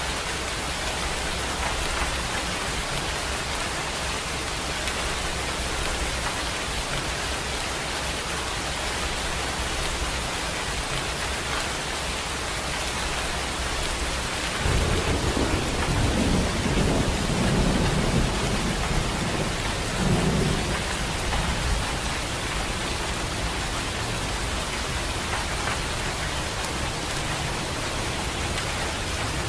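Steady rain hissing. About halfway through, a low rumble of thunder rolls in suddenly, swells twice over several seconds and fades back under the rain.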